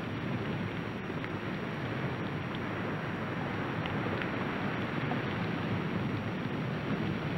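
Steady rushing noise of an underwater ambience track, with a few faint clicks.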